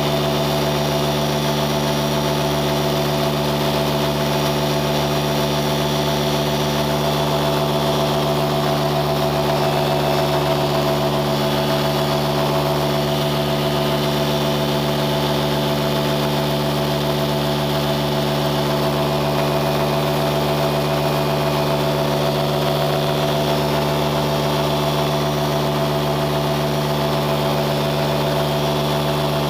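An engine running at a steady speed: a constant drone that holds one pitch throughout.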